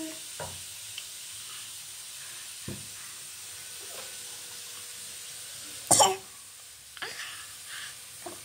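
A single short, sharp cough about six seconds in, over a faint steady hiss, followed by a few soft small sounds.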